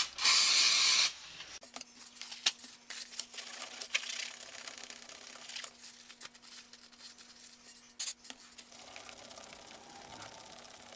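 A one-second hiss of aerosol electronic cleaner sprayed from the can, followed by quieter rubbing and scattered light clicks as the plastic meter case is scrubbed with it.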